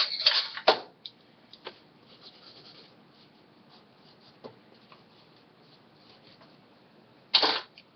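Handling noises: a short scrape or rustle right at the start, a few light clicks and faint rustling, and another short scrape a little before the end.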